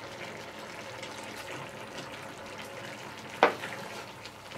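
Sauce sizzling and simmering in a cast-iron Dutch oven while it is stirred with a wooden spoon, with one sharp knock about three and a half seconds in.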